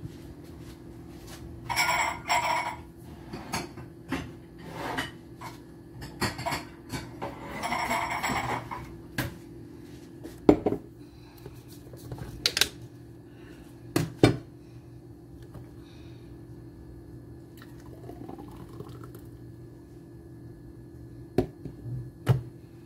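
Plastic blender jar and lid being handled on a countertop: clicks and sharp knocks, with two short scraping rattles in the first few seconds. Near the end the blended juice is poured into a glass, with a faint rising tone as it fills. A steady low hum sits underneath throughout.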